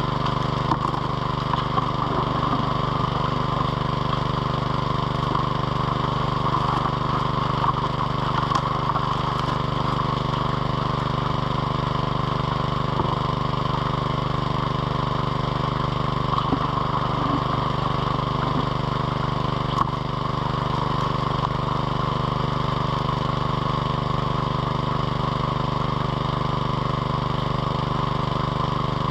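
Small petrol engine driving the high banker's water pump, running steadily at a constant speed throughout.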